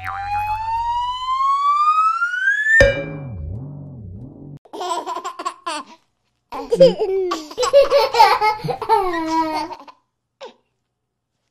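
Added cartoon sound effects: a whistle-like tone rising steadily in pitch for nearly three seconds, then a short wobbling warble, then a baby giggling for about three seconds; it falls quiet about ten seconds in.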